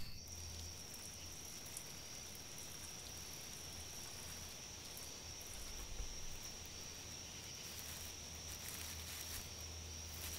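Night ambience of insects, likely crickets, keeping up one steady high-pitched drone, with a low steady hum beneath it.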